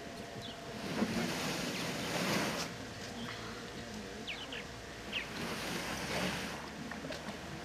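Lakeshore ambience: a soft hiss of wind and lapping water that swells twice, with a few faint high chirps.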